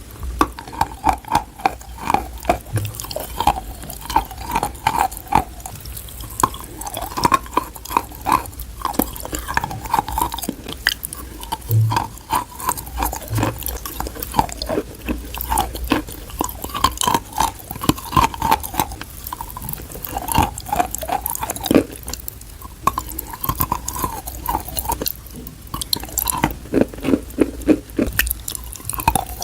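Close-up crunching and chewing of dry, chalky clay: dense sharp crackles and snaps in quick succession as pieces are bitten and ground.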